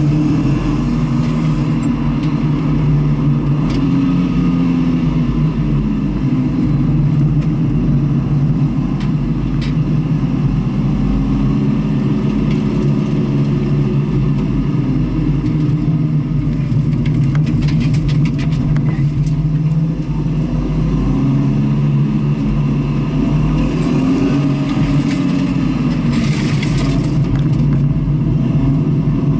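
A car engine running hard under load, its revs rising and falling again and again through the run. A strong low rumble runs underneath. A short hiss comes near the end.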